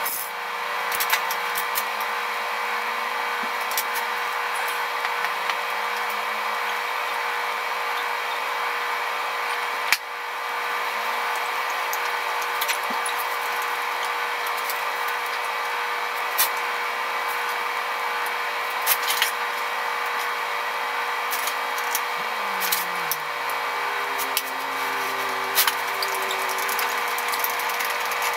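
Metal parts and hand tools clicking and clinking at a home-built radial drill as it is assembled by hand, with a sharper knock about ten seconds in and a run of clicks in the last third. A steady mechanical hum with a fixed tone runs underneath throughout.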